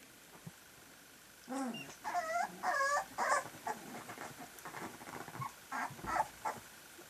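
Three-week-old puppies whining and squealing as they tussle. The calls start about a second and a half in: a few wavering whines, then a run of short yips and small growls.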